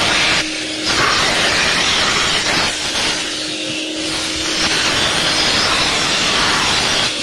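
VacuFlo 560 central vacuum hose and nozzle sucking air: a loud, steady rushing hiss with a faint hum under it, dipping briefly twice as the airflow changes.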